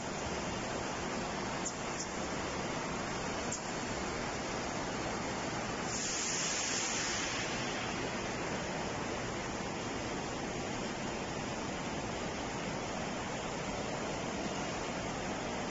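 LC-MBS35 shrink film wrapping machine running: a steady rush of air from its heat tunnel and cooling fans, with a few faint clicks in the first seconds. The hiss grows brighter for a second or so about six seconds in.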